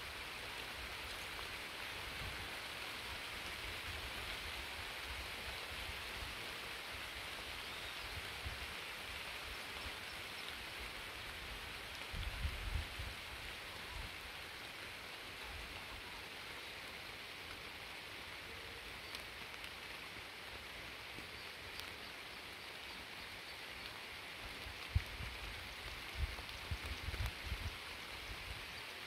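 Steady rain falling, an even hiss. A few low bumps on the microphone come about halfway through and again near the end.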